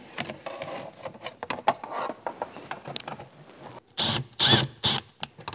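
Thin crinkled metal heat shield rustling and clicking as it is worked into place in an engine bay. About four seconds in, a cordless drill-driver runs in three short bursts, driving in the shield's fasteners.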